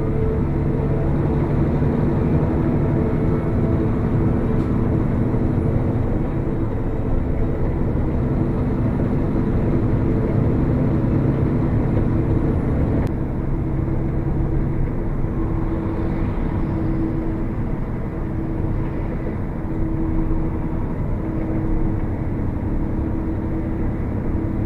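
Steady engine noise with a low hum, like a vehicle or aircraft running; the sound shifts at a cut about 13 seconds in.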